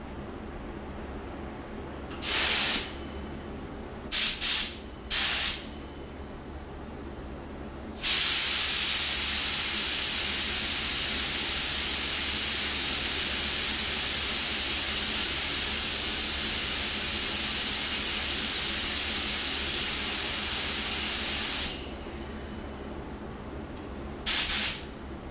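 Compressed air blowing from a hand-held air-line nozzle or spray gun: a few short blasts, then one long steady hiss with a high whistle in it lasting about 14 seconds, then one more short blast near the end.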